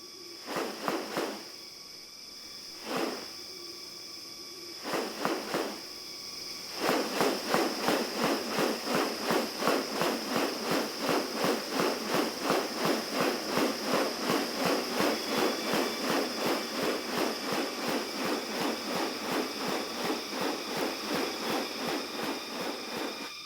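Rainforest insects: a steady high-pitched drone, a few separate short buzzes, then from about seven seconds in a louder pulsing buzz repeating about three times a second.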